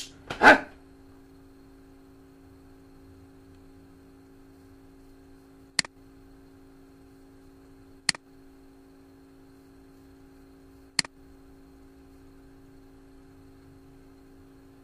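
Three single computer mouse clicks several seconds apart, over a steady electrical hum. A short, loud burst of noise comes just after the start and is the loudest sound.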